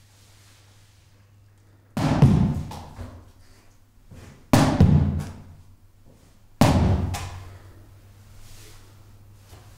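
Three loud, deep booming hits, about two seconds apart, each cutting in suddenly and dying away over about a second.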